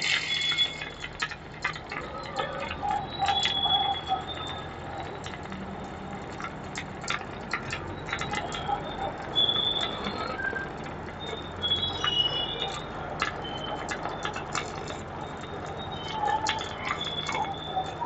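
MIG welding arc running continuously: a steady crackling sizzle with frequent sharp pops.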